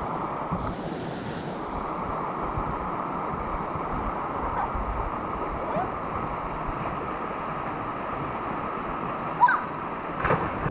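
Steady rushing noise of river water and wind, then a short rising cry and a loud splash near the end as a person dives head-first into a deep river pool.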